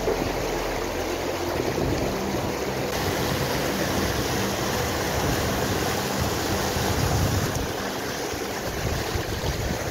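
A fast-flowing, rain-swollen moorland stream rushes and splashes over rocks as a steady whitewater rush.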